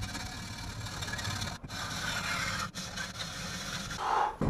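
Hand hacksaw cutting through the steel exhaust pipe to take off the muffler: steady back-and-forth rasping strokes, with two very short breaks.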